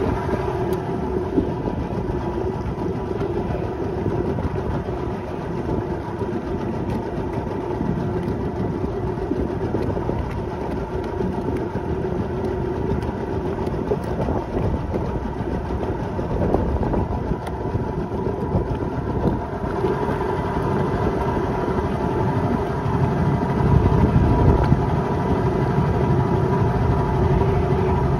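A boat's engine running steadily at low speed with a constant hum. A low rumble swells briefly about two-thirds of the way through.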